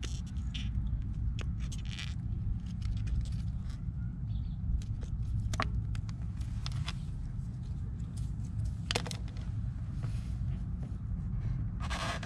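Scissors snipping through plastic skid-plate strips: a scattering of sharp, separate snips and clicks over a steady low rumble, with a short scrape near the end as a trimmed piece is set in place.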